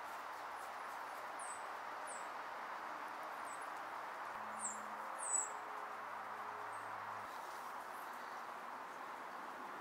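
Outdoor ambience: a steady background hiss with about five short, high, falling chirps over the first six seconds. The last chirp is the loudest.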